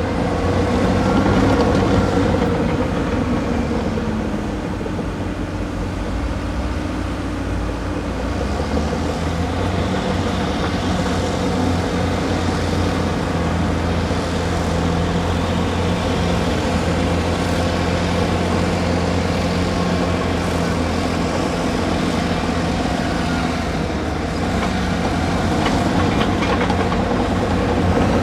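Heavy diesel engines of crawler excavators running steadily as they dig and move dirt, the engine note swelling and easing with the work.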